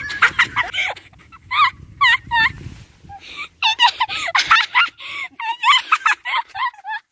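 High-pitched cackling laughter in quick runs of rising-and-falling squeals, with short pauses between runs.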